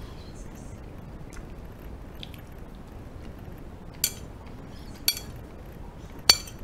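Metal spoon clinking against a ceramic plate while scooping fried rice: three sharp clinks about a second apart, the last one loudest.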